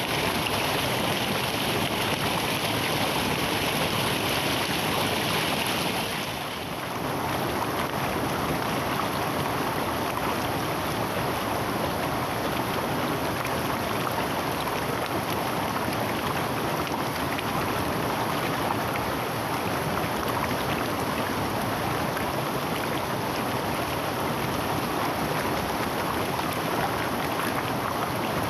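Heavy waterfall rushing, a steady full roar of falling water. About six seconds in it dips briefly and then carries on with a slightly duller hiss.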